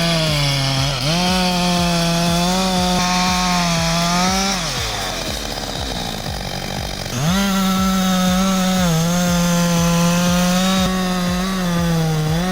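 Husqvarna 562 XP two-stroke chainsaw running at full throttle in the wood, a steady high engine note; it drops off about four and a half seconds in, runs low for a couple of seconds, then revs up again and holds.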